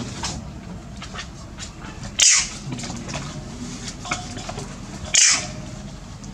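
Two short hissing spray bursts about three seconds apart: a wound spray being applied to a macaque's wound, leaving the purple antiseptic stain.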